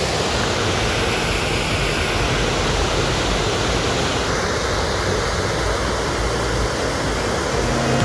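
Steady rushing of a wide waterfall, Hopkins Falls, pouring over a rock ledge into a pool below.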